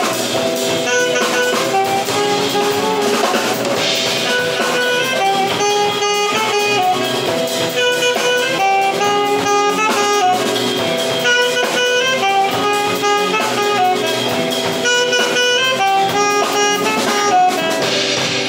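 Live band playing jazzy music: a saxophone melody of held notes over electric guitar, electric bass and drum kit.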